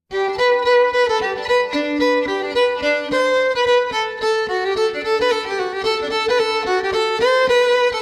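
Outro music that starts abruptly after a silence: a melody of quickly changing notes over a steady pulse.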